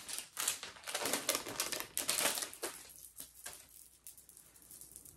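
Rapid light clicking and rustling of small jewelry and its packaging being handled, busiest for the first three seconds, then quieter.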